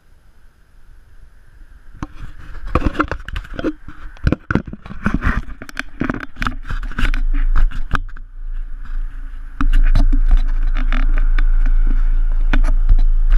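Close knocks and scrapes on an action camera's housing as it is handled against the metal side of a truck body, starting about two seconds in. From about ten seconds in a loud steady low rumble runs under them.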